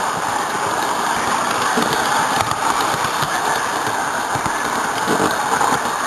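Garden-scale model train running along its outdoor track, picked up close from a car in the train: a steady whirr of wheels and drive with scattered light clicks.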